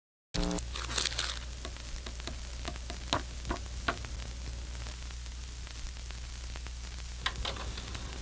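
Steady low hum with scattered crackles and sharp clicks, thickest in the first second or so.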